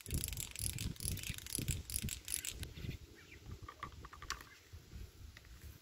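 Fishing spinning reel cranked fast, its gears clicking rapidly as line is wound in, stopping a little over halfway through, with low rumbling bumps throughout.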